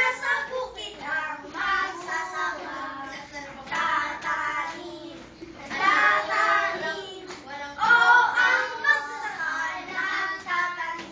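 Young children singing together, a group of schoolboys.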